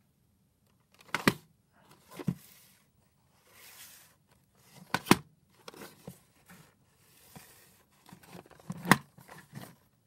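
Handling noise from a VHS tape case being turned over in the hand: rustling scrapes and a few sharp clicks or knocks, the loudest about a second in, about five seconds in and near the end.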